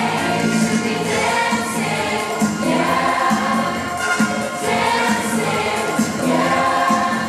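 High school chorus singing a disco medley together, many voices at once, over a steady beat.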